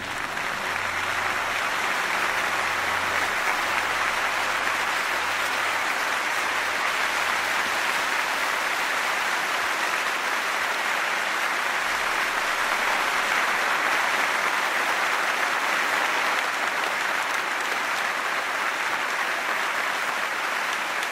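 Large audience applauding, steady dense clapping throughout.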